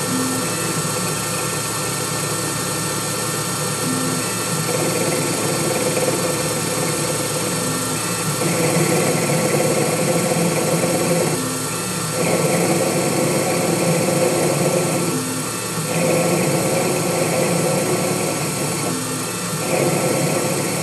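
Intelitek Prolight benchtop CNC lathe running steadily while turning a steel rod, making repeated roughing passes about every 3 to 4 seconds with a short break between passes as the tool returns. The first passes are mostly cutting air because the rod is undersized; the cutting sound comes in stronger from a few seconds in as the tool bites into the steel.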